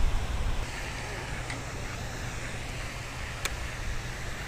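Wind buffeting the microphone outdoors, heaviest in the first half second and then easing to a faint steady hiss, with a single sharp click about three and a half seconds in.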